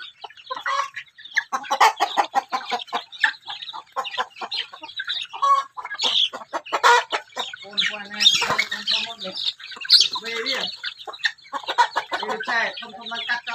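A flock of chickens clucking and calling while they feed, many short calls overlapping, with a longer drawn-out call about eight seconds in.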